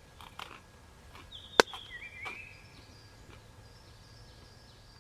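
Campfire crackling: a few small pops, then one sharp, loud crack about a second and a half in, followed by thin high whistling notes.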